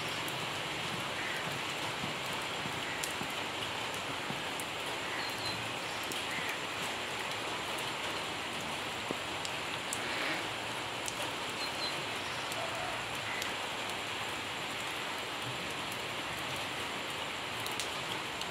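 Steady rain falling on a puddle, wet ground and foliage: an even hiss with scattered sharper drop ticks.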